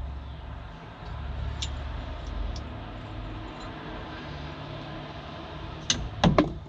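Small metal parts of an excavator pilot joystick being handled, with a few light clicks and then three sharp clicks close together near the end, over a steady low hum.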